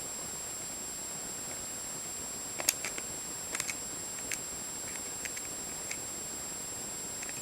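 Small sharp clicks and taps of plastic puzzle pieces being handled while the 4x4 cube is put back together, a cluster of several clicks a few seconds in and a few fainter ones later, over a steady background hiss.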